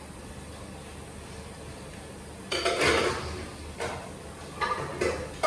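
White ceramic bowls clattering and clinking against one another as they are handled and stacked in plastic basins and baskets: quiet at first, then a loud clatter about halfway through and a few shorter knocks near the end.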